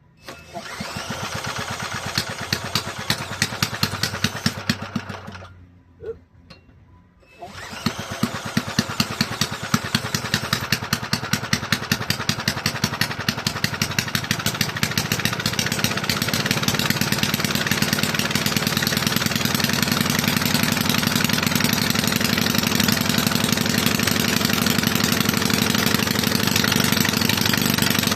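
Toro walk-behind lawn mower engine with no muffler. It fires and runs for about five seconds, dies, then is started again a couple of seconds later and keeps running, a rapid loud unmuffled popping that grows louder and settles at a steady high speed. The owner suspects a faulty governor linkage is holding it at high speed.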